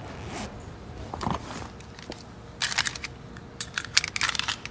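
A bag rustles as a hand rummages in it, then a handgun is handled, giving two quick clusters of sharp clicks.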